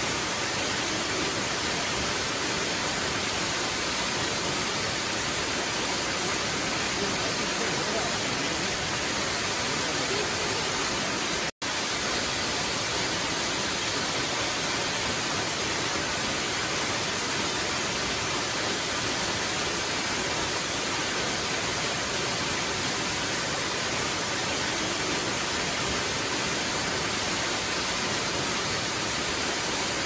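Waterfall pouring into a pool: a steady, even rush of falling water, broken by a split-second dropout a little before halfway through.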